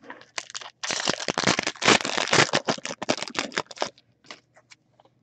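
Foil trading-card pack wrapper crinkling as it is torn open: a dense crackling for about three seconds, then a few light rustles and ticks of cards being handled.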